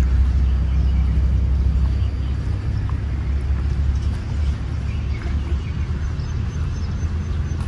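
Wind buffeting the microphone outdoors: an uneven low rumble, with a few faint ticks.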